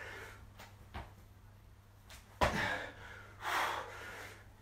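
A person doing burpees on a concrete floor: a light knock about a second in, a sharper thump on the floor about two and a half seconds in, then a hard breath out.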